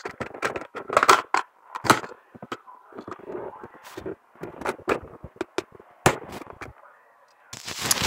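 Hard plastic toy vehicles knocking and clicking as they are handled, an irregular run of sharp taps with a brief lull shortly before the end.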